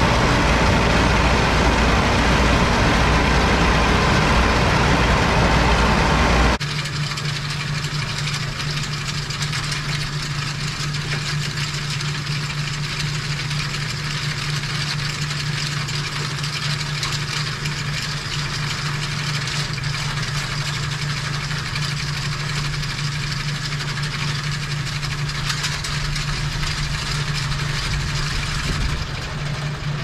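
Case 830 tractor running as it pulls a New Idea small square baler through the hay, loud and steady, ending abruptly about six seconds in. After that comes a bale elevator running, a quieter steady hum with light rattling as small square bales ride up it.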